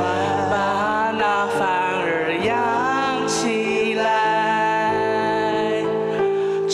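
A man singing a song into a handheld microphone over a backing track, his held notes wavering in vibrato, with a few bending runs in the middle.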